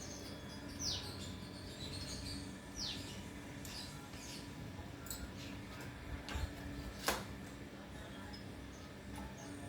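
Short high chirps falling in pitch, two clear ones about two seconds apart and a few fainter ones, over a faint steady hum, with one sharp click a little after seven seconds. The chirps are typical of small birds calling.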